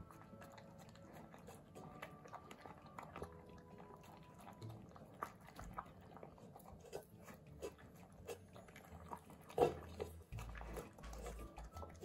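A puppy chewing and crunching pieces of peach from a stainless steel bowl: irregular wet bites and clicks of teeth, with one louder knock a little before ten seconds in.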